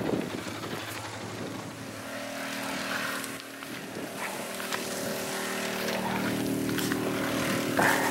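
Quad ATV engine running steadily while being ridden, its drone growing stronger about six seconds in.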